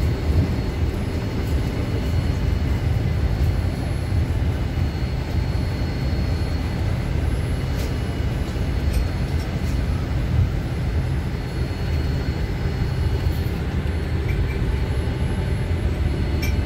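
Steady low rumble of an airliner's cabin on the ground, with faint steady whines above it and a few small clicks.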